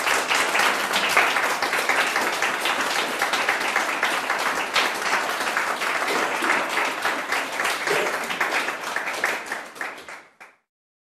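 Audience applauding: dense, even clapping of a few dozen people that fades and then cuts off abruptly near the end.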